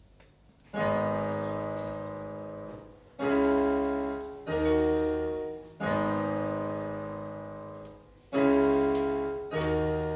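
Yamaha electronic keyboard on a piano sound, playing slow chords that start about a second in. Each chord is struck and left to ring and fade before the next, about six in all.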